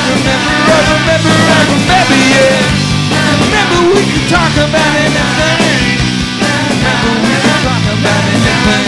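Rock band playing live, loud and steady: distorted electric guitars, a drum kit keeping a steady beat, and a male lead vocal singing over them.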